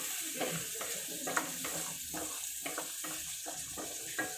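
Mushrooms and sliced black olives frying in olive oil, sizzling steadily, with repeated light clicks and scrapes of a utensil against the pan as they are stirred.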